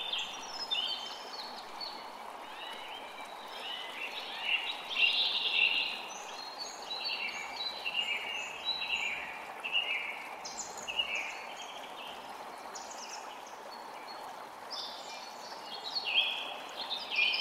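A forest creek running steadily, with several songbirds singing and chirping over it in quick overlapping phrases, busiest about four to six seconds in and again near the end.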